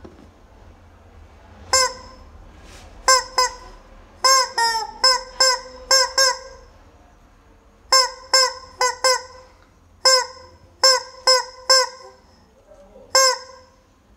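Rubber chicken squeeze toy squawking: about eighteen short honks in irregular bursts, some in quick pairs, with pauses of a second or two between groups.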